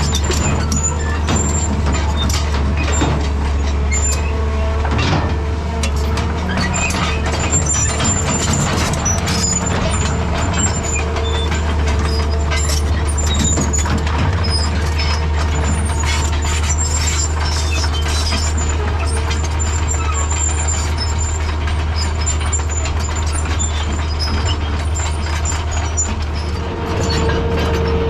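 Excavator's diesel engine running steadily under working load, with scattered knocks and clanks from the machine and brief high squeals.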